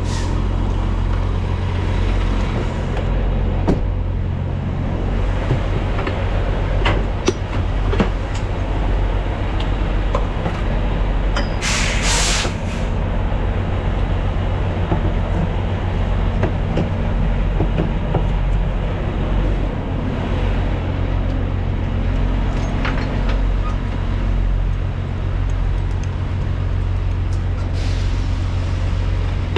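Semi truck's diesel engine idling steadily, with scattered clicks and knocks and a brief loud hiss of compressed air about twelve seconds in.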